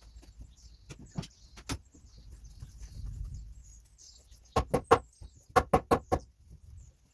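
Hammer strikes on wood during barn repair: a few light knocks, then two quick runs of sharp, ringing blows, three and then four, in the second half. Faint bird chirping sits behind them.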